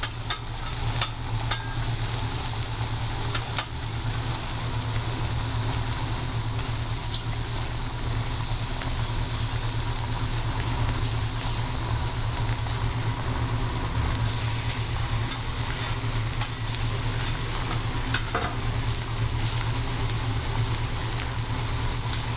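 Food sizzling steadily on a hot teppanyaki griddle, with a few sharp metal clicks in the first few seconds and a steady low hum underneath.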